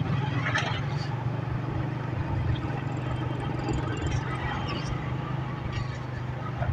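A vehicle's engine running with a steady low hum, with road noise, while driving along a street.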